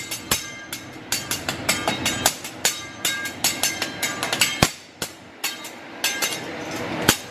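Hibachi chef's metal spatulas clacking and scraping on a steel teppanyaki griddle: a quick, irregular string of sharp metallic clicks, several a second, each with a brief ring.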